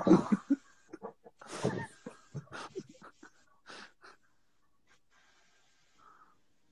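Short, breathy human vocal sounds, broken up and fading out after about three seconds, then near quiet.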